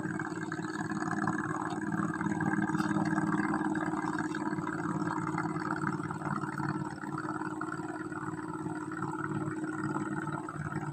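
An engine running steadily, a constant low drone with no change in pitch.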